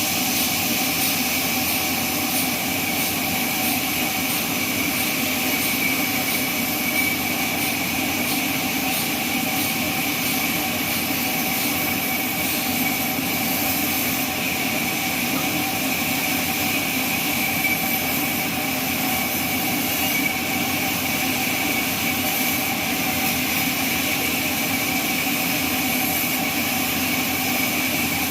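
Sawmill machine running steadily: a continuous mechanical whine with a constant hum beneath, unchanging throughout.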